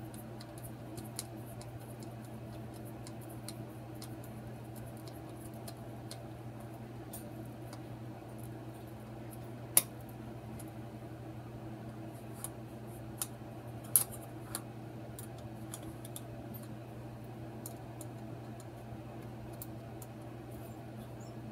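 Hand screwdriver driving small screws into a plastic animatronic head base: faint ticks and scrapes, with two sharper clicks near the middle, over a steady low hum.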